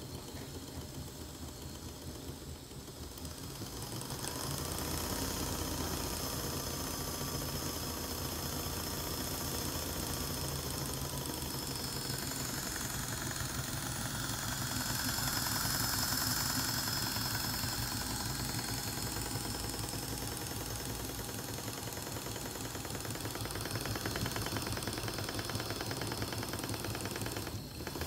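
Stuart 10V single-cylinder miniature vertical steam engine running steadily with a fast, even beat, louder from about four seconds in. A high hiss builds up near the middle.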